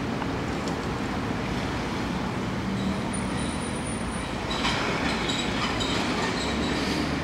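Steady city road traffic, with buses and cars passing. A faint high squeal comes about three seconds in, and the traffic noise swells slightly from about four and a half seconds.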